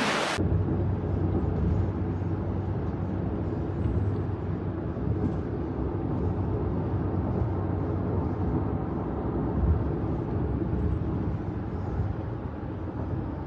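Car driving: a steady low rumble of engine and tyre road noise.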